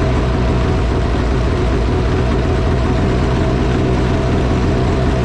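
2010 Arctic Cat CFR 1000 snowmobile's two-stroke twin engine running steadily at an even pitch, without revving.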